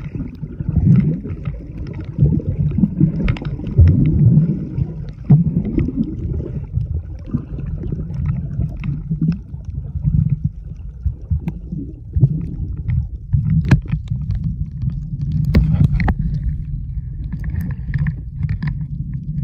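Muffled underwater sound from a camera held below the surface while snorkeling: a steady low rumble of moving water with scattered clicks and gurgles.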